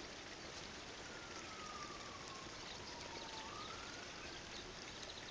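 Faint steady outdoor background hiss, over which a distant siren wails: its pitch falls slowly for a couple of seconds, then rises again.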